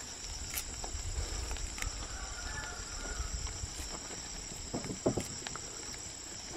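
Steady high-pitched insect chorus, with a low rumble underneath and a couple of faint knocks about five seconds in.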